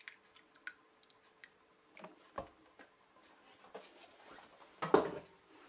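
Wooden spatula stirring tapioca, milk and water in a stainless steel saucepan: faint scrapes and light taps against the pan, with a louder knock near the end.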